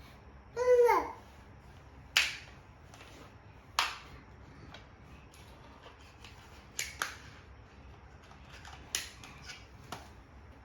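A toddler's short vocal sound, falling in pitch, followed by a scattered series of sharp taps and knocks, about six over several seconds.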